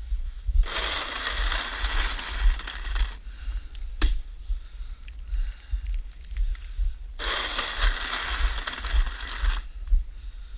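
Snow shovel scraping through snow in two long strokes of about two and a half seconds each, with a sharp knock between them.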